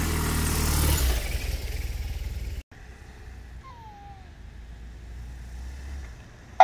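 Police-style touring motorcycle's engine running close by as the bike pulls away, until the sound cuts off abruptly about two and a half seconds in; after that the engine hum is much fainter.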